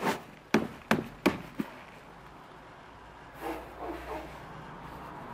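Upturned black plastic bucket of potting soil knocked against the metal tray of a wheelbarrow: five sharp knocks in quick succession to loosen the soil and potato roots inside. About three and a half seconds in, a softer scraping is heard as the bucket slides off the plug of soil.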